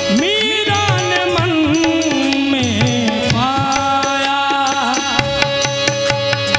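A man singing a slow Hindi devotional song in long, ornamented held notes over a steady accompaniment with regular drum beats. Near the end the voice stops and held instrument notes carry on.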